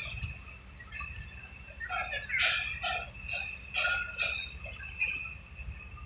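Small birds chirping in short, irregular calls over a steady low rumble.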